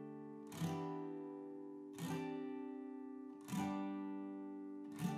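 Background music: slow strummed acoustic guitar chords, one about every second and a half, each left to ring out.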